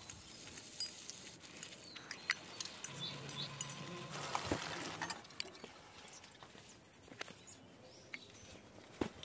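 Rohu fish pieces frying in oil in an aluminium wok: a sizzling hiss, loudest in the first second or so, with scattered clicks from the metal spatula.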